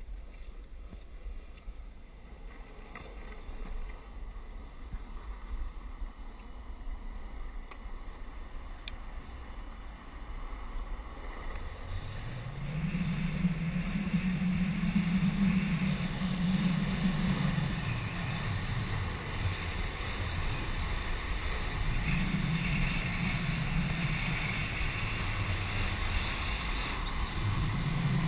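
Wind buffeting a pole-mounted action camera's microphone, over the steady noise of longboard wheels rolling on asphalt. The noise gets louder about twelve seconds in as the board picks up speed downhill, with a low hum that swells and fades several times.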